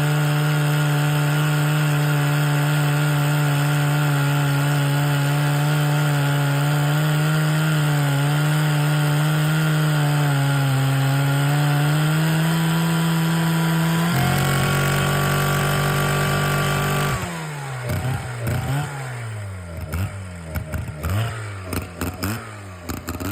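Vintage Disston-Mercury G10 chainsaw engine running steadily at high speed. About fourteen seconds in its note changes abruptly, and a few seconds later the speed falls away into irregular revving up and down.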